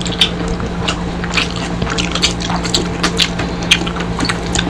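Close-up mukbang eating sounds from several people eating crispy fried tilapia by hand: chewing, with irregular wet smacks and clicks of lips and mouths. A steady low hum runs underneath.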